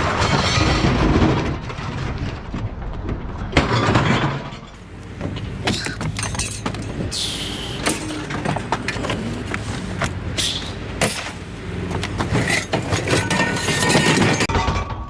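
Scrap metal being thrown and dumped onto a scrap pile: repeated crashes and clattering of sheet steel and junk, over a steady engine hum.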